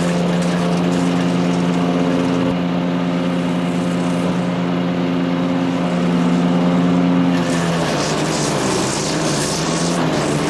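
Kohler CH440 single-cylinder engine of a Power King wood chipper shredder running steadily at speed. A little past two-thirds of the way in its note drops and wavers and a grinding hiss rises, as the engine loads down while material goes through the chipper drum.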